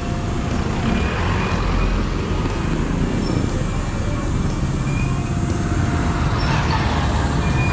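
Road traffic with a steady low rumble, heard from a moving bicycle.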